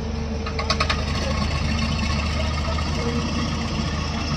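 Hyundai crawler excavator's diesel engine running steadily while it works the arm, with a quick run of sharp clicks or clanks a little under a second in.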